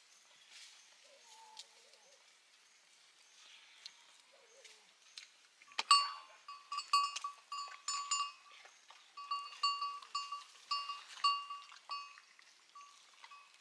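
A livestock neck bell clanging in quick, irregular strikes, several a second. It comes in suddenly about six seconds in, after a faint, quiet stretch, and pauses briefly twice.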